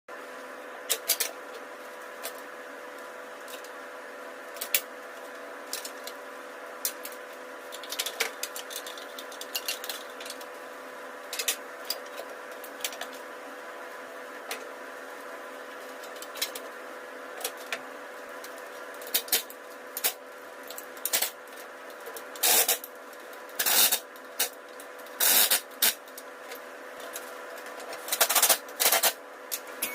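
Scattered sharp metallic clicks and knocks of tools and parts being handled during car repair work, over a steady hum. The knocks come more often and run longer in the last third.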